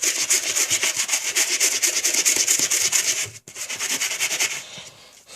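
Toothbrush scrubbing a sneaker sole with toothpaste in rapid back-and-forth strokes. The strokes break off briefly about three and a half seconds in, then grow lighter near the end.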